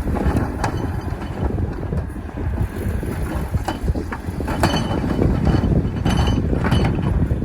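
Heavy diesel construction machinery (dump trucks and bulldozer) rumbling, with wind buffeting the microphone and a few short metallic clanks.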